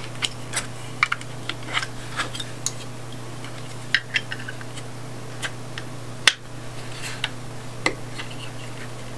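Hard plastic toy parts clicking and tapping together as the posts and platforms of a miniature cat climbing frame are pushed onto their pegs: scattered sharp clicks, the loudest about six seconds in.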